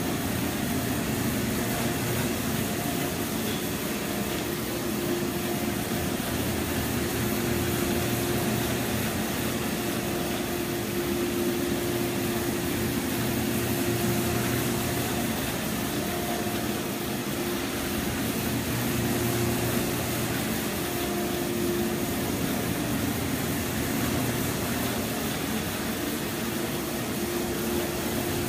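Rotary carpet-cleaning extractor running steadily over carpet: its motor spinning the cleaning head gives a steady hum with a held tone, over an even rush of vacuum suction.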